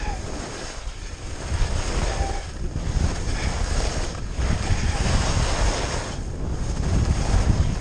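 Wind buffeting the action camera's microphone as the skier picks up speed, a low rumble, with the hiss of skis sliding and carving on groomed snow that eases briefly between turns. It grows louder over the first second or so.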